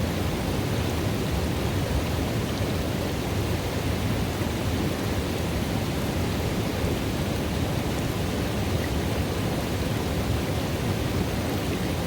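Running water in a river pool: a steady, even noise with most of its weight down low, unchanging throughout.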